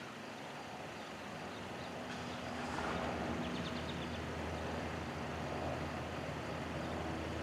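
Steady low engine hum with faint traffic-like noise, growing slightly louder over the first few seconds and then holding steady.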